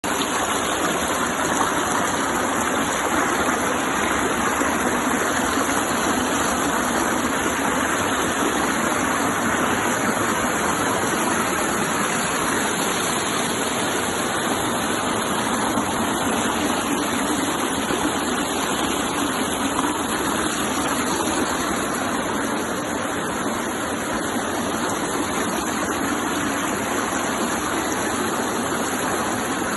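Waterfall rushing steadily, a continuous roar of falling water without a break.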